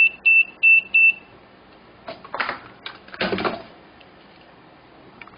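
A run of short, evenly spaced high electronic beeps in the first second, then two brief bursts of small hard objects clattering about two and three seconds in.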